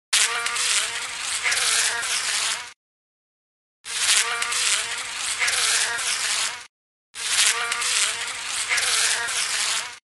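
A fly buzzing fast, heard in three stretches of about three seconds each with short silences between. The buzz wavers in pitch as the fly moves about.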